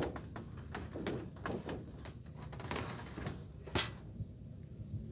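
Aluminium and stainless-steel collapsible dog cage being handled: short scrapes and knocks of its floor tray in the frame, with one sharp click about four seconds in.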